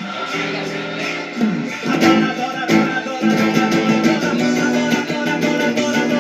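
Gospel worship band music, with guitar most prominent, playing an instrumental passage.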